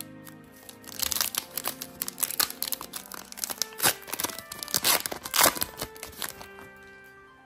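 Foil wrapper of a Pokémon TCG booster pack crinkling and tearing as it is opened by hand, a dense run of crackles lasting about five seconds, over soft background music.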